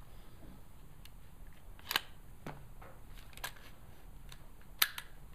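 Sharp metallic clicks and clacks of an AR-15 with a CMMG .22 LR conversion bolt being worked by hand to clear a failure to eject: about five short clicks, one pair close together near the end.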